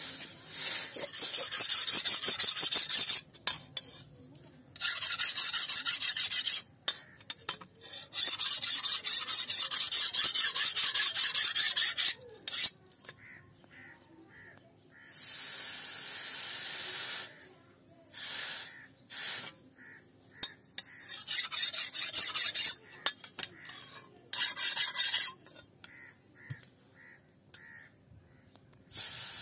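A hot leaf-spring-steel cleaver blade sizzling and hissing in a bowl of water in repeated bursts of one to four seconds as it is dipped in and lifted out, being quenched to harden it.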